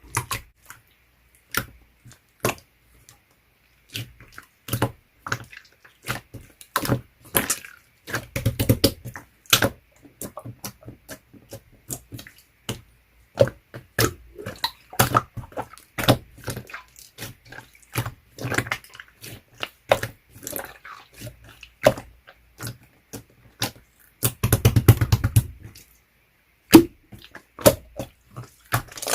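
Clear slime worked by hand: a steady run of sharp wet clicks and pops as it is pressed and pulled, with two denser crackling bursts, one about eight seconds in and one near the end.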